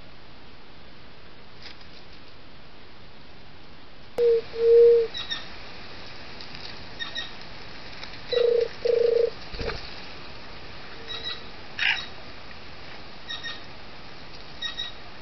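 Male juruti dove (Leptotila) cooing in courtship: low hooting notes in pairs, about four seconds in and again about eight seconds in, with a fainter one a little later. Under the coos are a steady hiss and short high chirps from other birds.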